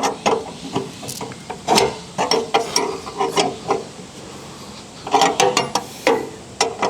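Ratchet wrench clicking in short bursts of rapid ticks as a cover bolt is loosened and backed out.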